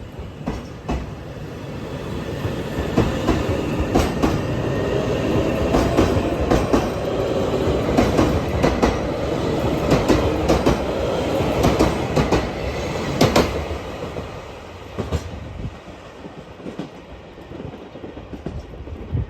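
Train passing on the rails, its wheels clicking over the rail joints. It grows louder over the first dozen seconds with a steady whine underneath, then fades away.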